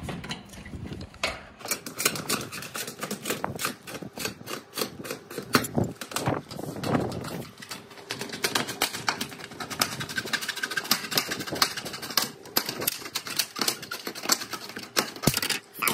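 Standing seam steel roofing panel being worked with hand tools: a fast, irregular run of metallic clicks and knocks, several a second, as the trimmed seam is handled.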